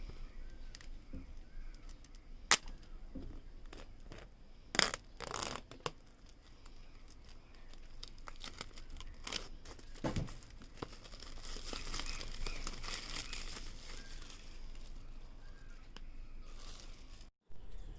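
Smartwatch packaging being opened by hand: wrapping crinkling and tearing, with scattered sharp clicks and handling knocks. The sharpest click comes about two and a half seconds in, and there is a longer spell of crinkling about two-thirds of the way through.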